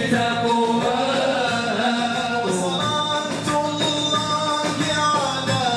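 A man singing an Arabic nasheed into a microphone, holding long notes that waver in pitch.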